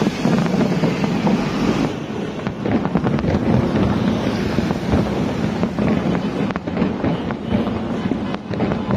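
Fireworks going off in quick succession, a dense run of bangs and crackling. Wind buffets the microphone for the first two seconds.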